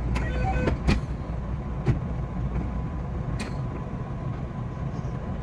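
JR West 227 series electric train running: a steady low rumble with a few sharp clicks, and a brief set of tones just after the start.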